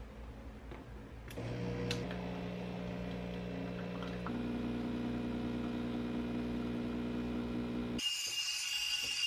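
Asahi espresso machine switched on with a click, its pump starting a loud steady hum while brewing espresso; the hum's pitch shifts about three seconds later as the coffee runs into the mug. Near the end the sound cuts to a high hiss with steady whistling tones.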